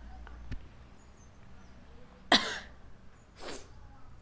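A person coughs once, sharply, about two seconds in, followed about a second later by a second, softer cough.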